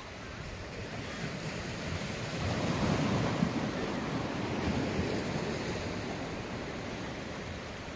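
Small sea waves washing against shoreline rocks, swelling to their loudest about three seconds in and then slowly fading.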